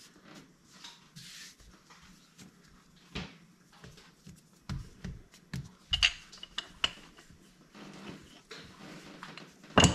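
Rolling pin working small rounds of pie dough on a counter: soft rolling noise with irregular knocks and taps, a few louder clacks around six seconds in and near the end.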